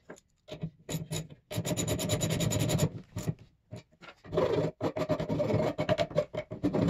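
Hacksaw sawing through a steel all-thread (threaded rod) in quick rasping back-and-forth strokes, in two runs with a short break between them. A few light metal clicks come just before.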